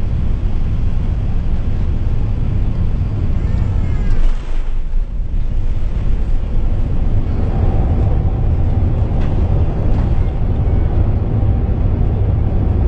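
Loud, steady low roar inside a four-engine airliner's cabin as it lands and rolls out on a rain-soaked runway. A steady higher tone joins the roar about halfway through.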